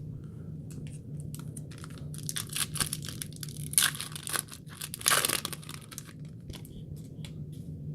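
Foil trading-card pack being torn open and crinkled by hand: a run of crackling rips and rustles, loudest about four and five seconds in.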